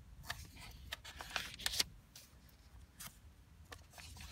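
Paper pages of an old desk diary rustling and scraping under a hand as they are handled and turned, a string of short dry brushes, busiest between one and two seconds in.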